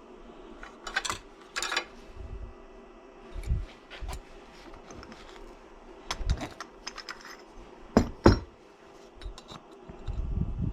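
Small metal parts and tools clinking and knocking as they are handled, with short rattles early on and two sharp knocks close together about eight seconds in.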